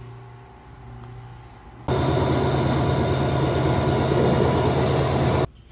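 CNC plasma cutter torch firing over a water table: a loud, steady hiss with a low hum that starts abruptly about two seconds in and cuts off suddenly some three and a half seconds later.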